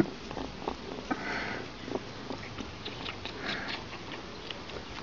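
A pet cat sniffing close to the microphone, with scattered small clicks and soft rustling breaths.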